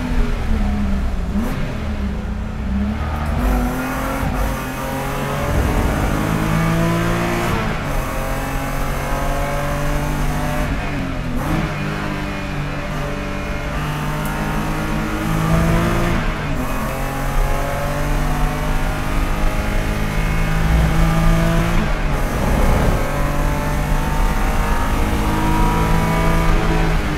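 Onboard sound of a BMW E90 330 race car's straight-six engine under hard acceleration. It revs up through the gears, its pitch climbing and dropping at each shift, and rises and falls again under braking for corners. Wind and road noise fill the cabin behind it.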